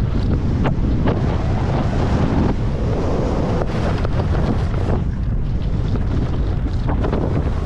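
Wind buffeting a ski camera's microphone during a fast descent, a steady loud rumble. Under it, skis hiss and scrape over packed snow, with a few short scrapes as the edges bite in the turns.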